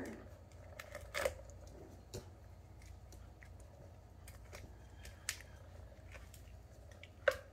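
A puppy nosing at a plastic tiered ball-track toy: scattered light clicks and taps of plastic, the loudest about a second in and again near the end.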